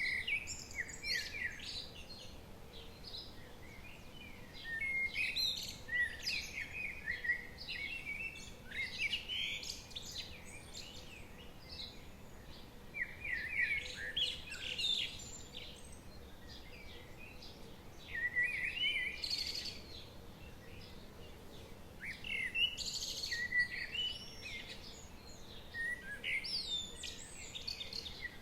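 Songbirds singing: bright chirping phrases in clusters every few seconds, over a faint steady background hiss.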